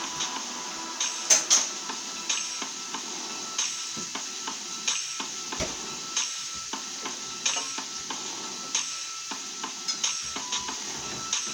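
Steaks sizzling in a frying pan, with scattered sharp clicks and scrapes of a utensil against the pan; two loud clicks come about a second and a half in.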